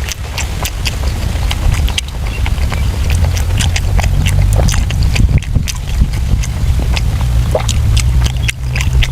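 Close-miked eating sounds: wet chewing and lip-smacking clicks, many short ones in quick succession, over a steady low wind rumble on the microphone.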